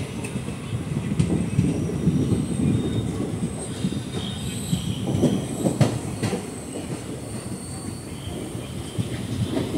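Passenger train coach running over the rails as it pulls into a station, heard from its open window: a continuous low rattling rumble. About halfway through come a few sharp knocks and faint high wheel squeal.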